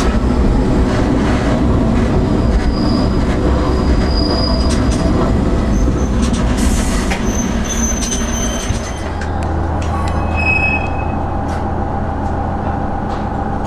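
Sanriku Railway diesel railcar rolling slowly through station pointwork, its wheels clicking over the rail joints with brief high squeals. About nine seconds in, this gives way to a steadier low hum.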